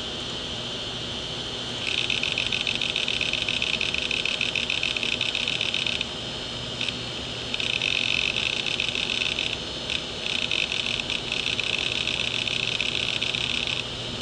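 Opened hard disk drive running: a steady spindle hum under long runs of rapid buzzing chatter from the read/write head actuator seeking back and forth, in three stretches with a few single clicks between them.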